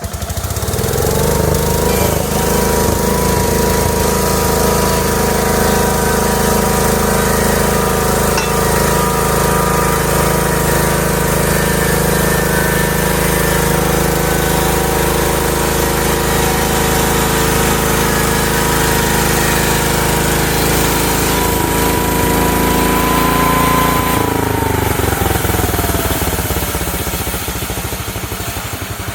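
Homemade sawmill's engine revving up from idle within the first second, running at a steady high speed, then throttling back down after about 24 seconds.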